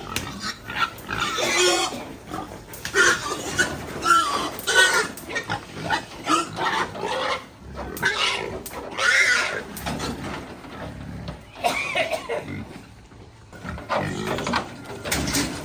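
Pigs squealing in repeated loud, irregular bursts, with a short lull near the end.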